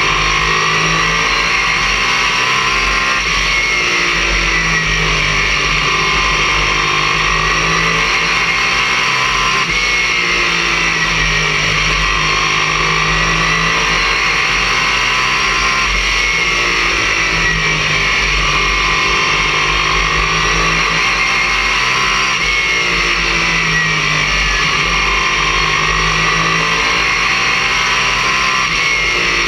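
Late model stock car's race engine at racing speed, heard from inside the car through an overloaded camera microphone: a loud, distorted, unbroken drone whose pitch swells and falls every few seconds as the car laps the oval.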